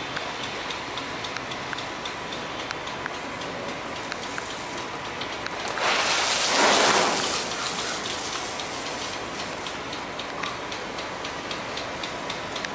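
Pelican rain gun sprinkler throwing its water jet: a steady hiss of falling spray, with faint light ticks. About six seconds in, the spray sweeps past and swells to a loud rushing hiss for about two seconds, then eases back.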